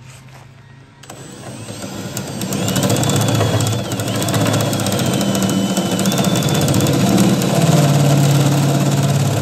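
Power drill spinning a hole-saw-style spot weld cutter on a long extension into the sheet metal of a truck bed, cutting out a spot weld. It builds up about a second in and then runs steadily under load, with a rapid chatter from the cutter and a thin high squeal from the metal through the middle.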